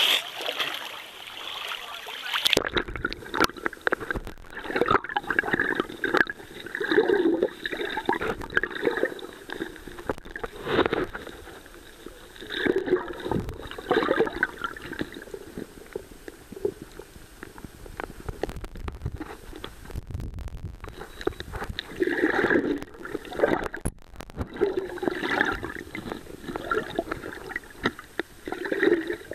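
Sea water heard through a submerged camera's microphone: muffled swishing and gurgling that comes and goes in irregular surges as the camera moves through shallow water. About two and a half seconds in, the open-air water noise at the surface cuts to this muffled underwater sound as the camera goes under.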